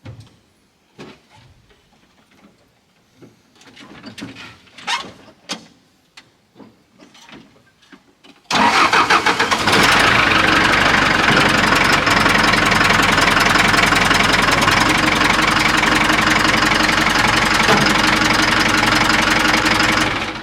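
A few faint clicks and knocks, then about a third of the way in a vehicle engine comes in suddenly, loud and running steadily, and it cuts off abruptly just before the end.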